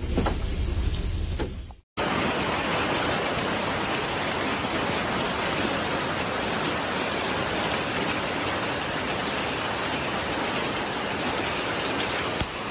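A brief low rumble with a few knocks, then a hard cut to heavy storm rain pouring down, a dense, even hiss that holds steady for the rest of the time.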